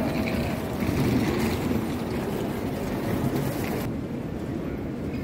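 Steady ambient rumble and hubbub of a large airport terminal hall. The hiss above it drops away suddenly near the end, at a cut.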